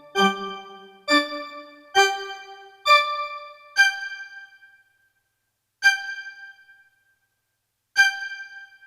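Comedic keyboard sound effect: seven struck chords, each starting sharply and fading. The first five come about a second apart, each higher and thinner than the last. Two more lone high notes follow about two seconds apart.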